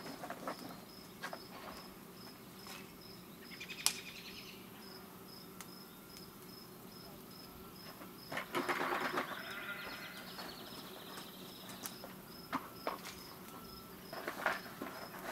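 Insects chirping in a steady high pulse, about two to three a second, with scattered sharp crackles of a wood fire burning in a kiln firebox and a louder burst of noise about nine seconds in.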